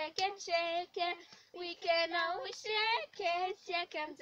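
Young girls singing a children's song together, in short sung syllables.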